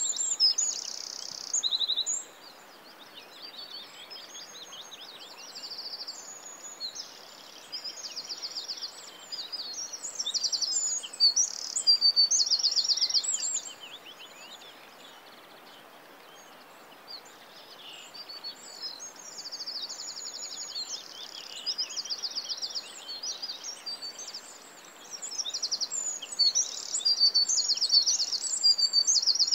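Songbirds singing: many high, rapid trills and chirps that overlap, louder in stretches in the middle and again near the end, over a faint steady hiss.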